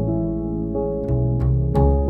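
Slow instrumental background music: sustained piano-like chords, with new plucked notes struck about a second in and twice more soon after.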